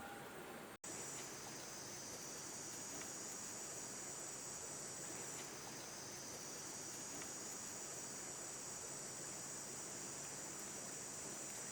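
Steady chorus of insects making a continuous high-pitched buzz. It starts just under a second in, after a brief dropout.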